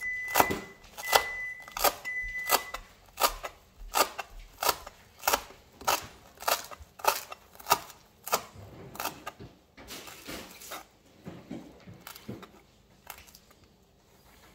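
Chef's knife chopping fresh coriander on a plastic cutting board: sharp, even knocks about one and a half a second, becoming quieter and sparser after about eight seconds.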